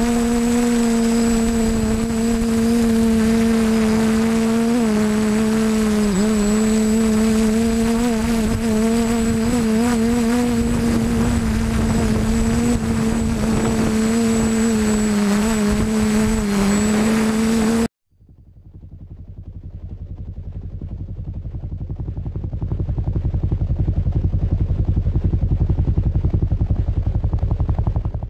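Multirotor drone's motors and propellers buzzing steadily, heard through its own onboard camera with wind noise, the pitch wavering slightly as it manoeuvres. About two-thirds of the way in it cuts off abruptly, and a low rumble builds up over a few seconds and then fades out.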